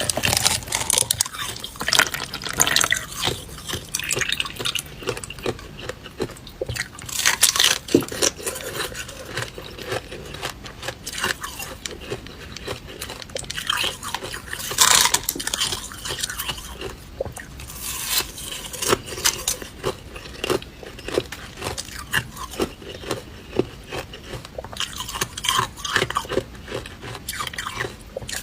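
A person biting and chewing ice close to the microphone: irregular crunching and crackling, with a few louder bites spread through the stretch.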